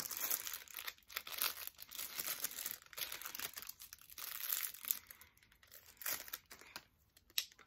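Plastic packaging crinkling and rustling as makeup brushes are unwrapped by hand: irregular crackles, dense at first, thinning out and quieter over the last couple of seconds.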